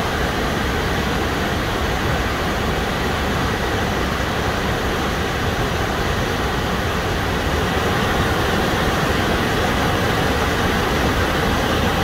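Waterfall on a mountain river in high flow: white water rushing over rock, a loud, steady, unbroken rush of water.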